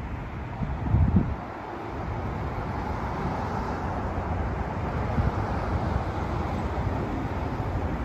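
Outdoor street ambience: wind rumbling on the microphone over steady road-traffic noise, with a loud gust about a second in and the traffic hiss swelling through the middle.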